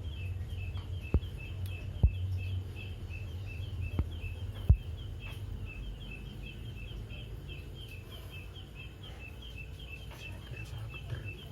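Steady, evenly repeated high chirping, about three to four chirps a second, over a low hum. A few sharp knocks cut through it, the loudest about two and four-and-a-half seconds in.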